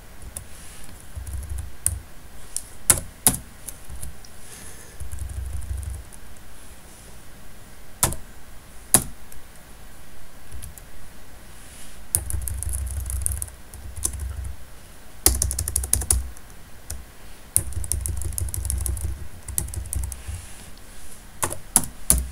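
Computer keyboard being typed on: scattered single keystrokes and several short runs of quick key presses, with low dull knocks under some of the runs.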